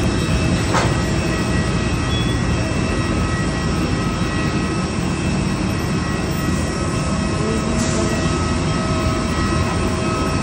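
Jet airliner's turbine running steadily: a loud, even roar with several steady whining tones on top, and a brief click about a second in.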